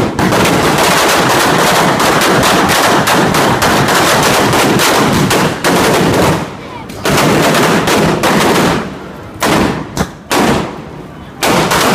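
A string of firecrackers going off in a rapid, continuous crackle of bangs. After about six and a half seconds it breaks into separate bursts with short gaps.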